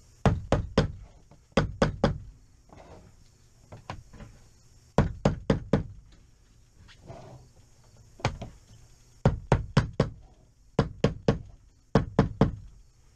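Claw hammer tapping gently, in short runs of three to five quick taps a few seconds apart. It is driving a canvas's hemmed strip into the aluminum track along a pop-up camper's roof so the strip locks in.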